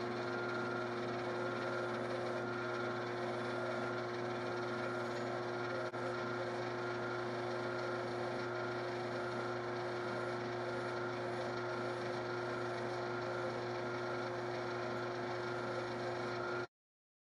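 Grizzly wood lathe running at a steady low speed with a steady hum and whine, while a hand file is held against the spinning metal pin to smooth its cut end. The sound cuts off suddenly near the end.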